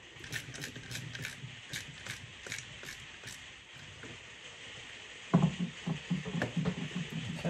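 A small screw being turned by hand with a screwdriver into the plastic casing of a boiler wiring plug: light irregular clicks and scrapes, then a louder knock and handling noise about five seconds in. Heavy rain on a conservatory roof hisses steadily underneath.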